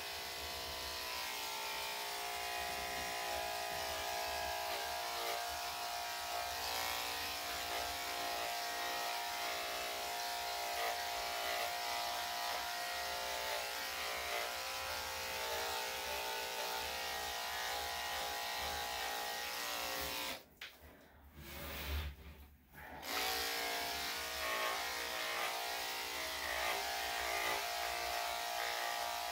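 Electric dog grooming clippers running with a steady buzz as they clip a spaniel's coat around the neck and head. The sound cuts out briefly about twenty seconds in, then comes back.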